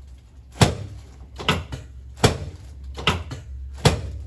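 About five sharp clacks, evenly spaced less than a second apart, from chiropractic equipment during an adjustment of the neck, over a steady low hum.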